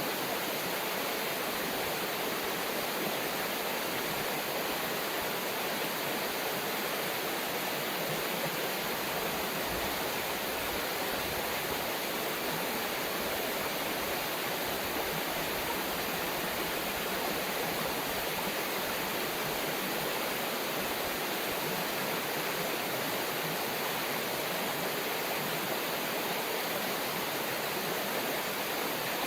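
River water rushing over rocks: a steady, even hiss with no breaks or changes.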